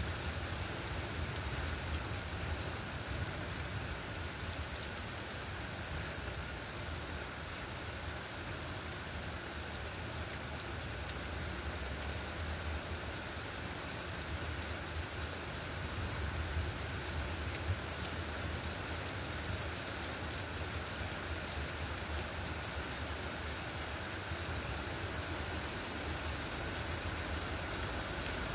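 Heavy rain falling on a wet street and pavement: a steady, even hiss of downpour.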